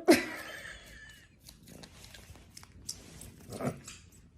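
A cat's short, sudden cry at the start, lasting about a second, then faint small clicks and rustling.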